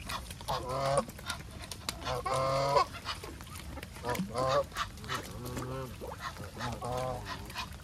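Geese honking, several separate calls, the longest and loudest about two seconds in.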